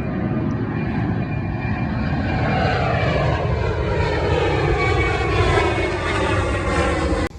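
Airplane passing low overhead: its engine noise grows louder while whining tones in it fall steadily in pitch as it goes by, then the sound cuts off suddenly near the end.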